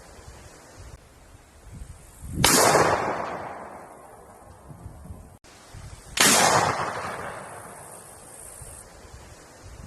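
Two single gunshots about four seconds apart, each a sharp crack followed by a long echoing decay.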